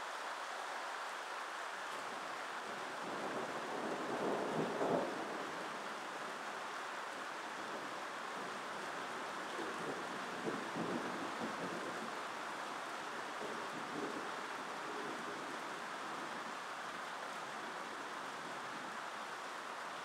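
Thunderstorm: steady rain hiss with rolling thunder that swells to its loudest about four to five seconds in, then further rumbles around ten and fourteen seconds in.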